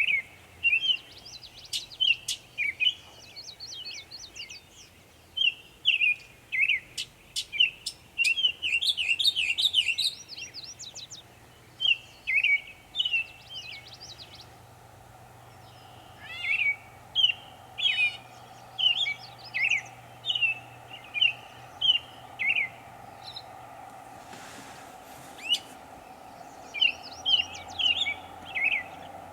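Northern mockingbird singing a long string of varied phrases made of quick, sharp, high notes, with brief pauses between bursts. A faint steady hum sits underneath from about the middle on.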